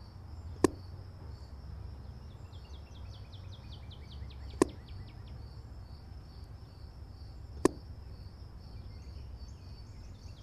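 A 9mm EDgun Leshiy 2 PCP air rifle firing: three sharp single cracks, about three to four seconds apart, over insects chirping steadily.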